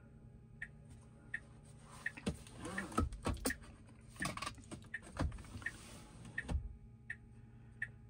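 A Tesla Model Y's turn-signal indicator ticks evenly, about three times every two seconds. From about two seconds in to past six seconds, a whirring with several dull thumps runs over it, the sound of the car's motors and actuators moving as it takes the new configuration.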